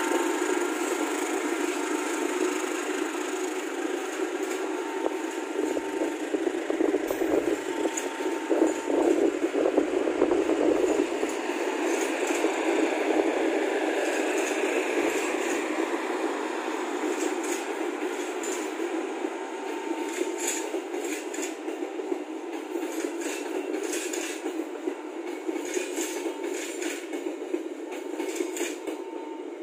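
Passenger train passing close by, a CC206 diesel-electric locomotive followed by a long line of coaches, with a continuous rumble of wheels on the rails. Sharp clicks from the wheels crossing rail joints come through more and more in the second half.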